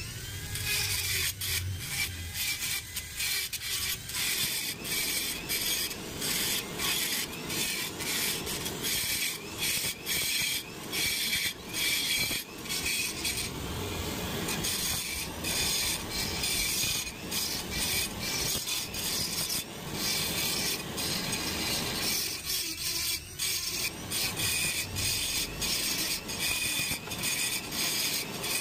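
Handheld rotary tool with a small burr grinding out a broken steel bolt stuck in an aluminium engine case. It runs as a steady high whine with scraping, broken by many short dips as the bit is pressed on and lifted off.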